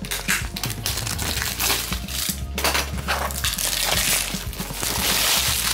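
Clear plastic shrink-wrap film crackling and crinkling as it is slit with a hobby knife and peeled off a cardboard box. The crackle grows denser and a little louder toward the end.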